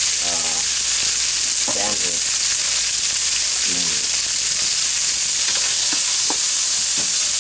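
Stir fry sizzling steadily in a wok over high heat, with a couple of sharp clicks near the end.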